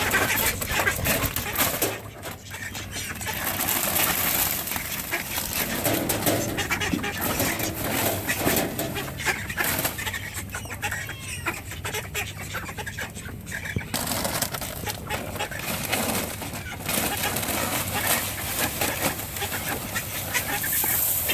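Chickens clucking, with rustling and scraping close by.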